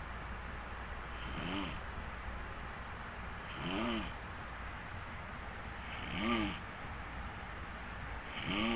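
A person snoring: four snores about two and a half seconds apart, each one rising and then falling in pitch, the fourth just starting near the end. A low steady hum runs underneath.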